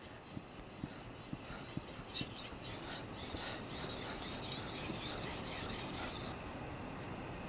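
Gyuto kitchen knife edge being stroked back and forth on a wet synthetic whetstone, a faint rasping scrape, as a secondary bevel is sharpened and a burr is raised along the edge. The strokes stop shortly before the end.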